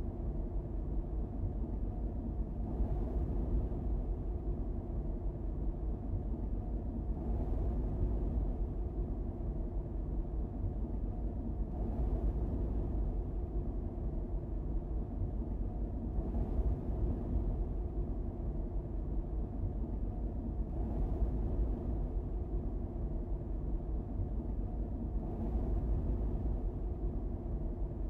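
Steady low rumble of a car on the move along a paved road: engine and tyre noise heard from inside the vehicle, with faint swells every four or five seconds.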